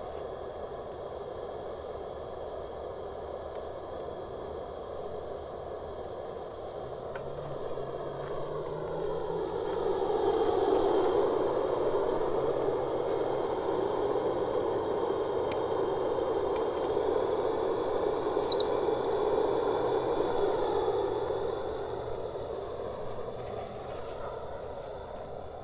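Coal-fired live steam locomotive (ride-on scale) hissing and rattling with steam, swelling louder about ten seconds in, holding, then fading near the end. A brief high squeak comes about eighteen seconds in.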